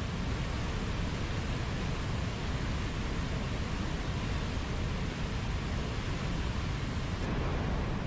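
Mountain waterfall: water falling and rushing steadily as an even, unbroken noise, heaviest in the low pitches.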